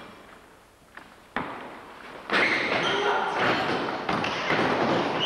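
A basketball bounces twice on a wooden gym floor, then a loud scramble of running feet, squeaking shoes and voices as play breaks out.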